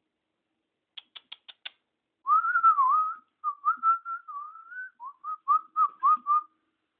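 Five quick clicks about a second in, then a person whistling to call a puppy: a long wavering note, then a run of short whistled notes.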